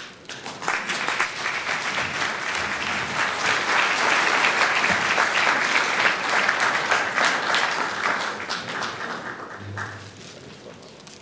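Audience applauding: the clapping starts under a second in, holds for several seconds, then dies away about nine seconds in.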